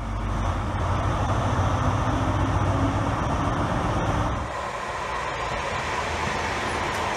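Diesel HST power car idling with a steady low engine hum. About four and a half seconds in, the sound changes to a multiple-unit passenger train running past.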